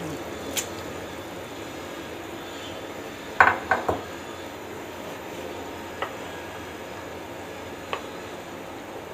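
A metal cooking pot of boiling dal being handled as rice is added and stirred in with a ladle: a quick run of three or four knocks against the pot about three and a half seconds in, and a few single light clicks, over a steady hiss.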